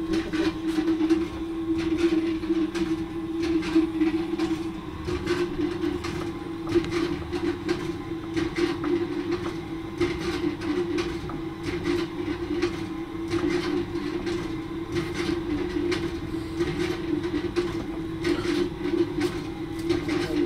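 A steady mechanical hum, holding one pitch, with irregular clicks and knocks over it.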